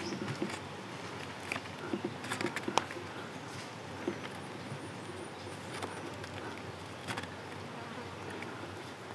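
An insect buzzing close by, with scattered small clicks and rustles of a green vine being wound and knotted around the joint of two wooden sticks, most of them in the first three seconds.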